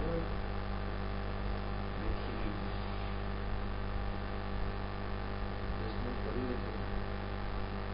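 Steady electrical mains hum with a buzzy stack of fixed tones, likely picked up by the recording microphone, with faint snatches of distant voices a couple of times.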